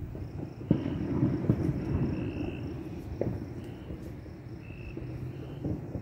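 Night insects calling in short repeated trills, one about every second or so. Under them is a low rumble with a few dull thumps, loudest about a second in.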